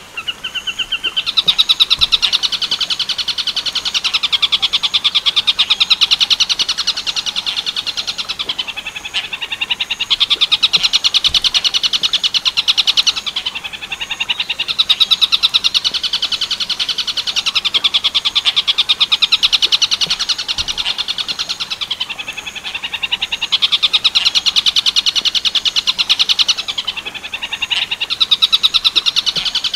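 Tengkek buto (stork-billed kingfisher) call: a loud, fast rattling trill of rapidly repeated notes, in long phrases of several seconds each, broken by short pauses of about a second.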